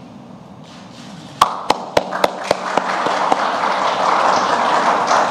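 Audience applause: a few loud single claps close by, about four a second, start about a second and a half in, then many hands join and the applause swells.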